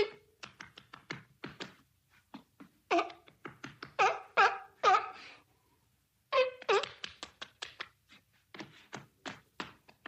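A seal barking in short, harsh calls, bunched near the start, again several times between about 3 and 5 seconds in, and twice around 6.5 seconds, with sharp slaps of its flippers clapping in between and all through.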